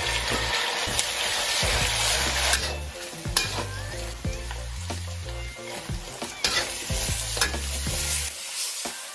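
Food sizzling in a hot pan while being stirred, with scattered clicks and scrapes of the utensil against the pan, over background music with a steady low bass line.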